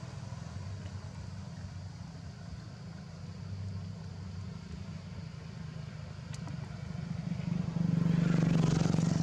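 A motor vehicle's engine runs steadily in the background as a low hum, growing clearly louder about eight seconds in.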